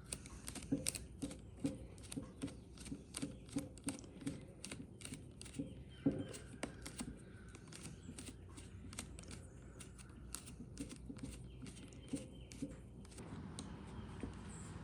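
Light clicks and taps of a hand tool working screws back into the string trimmer's plastic housing, a couple a second, with small dull knocks of parts being handled.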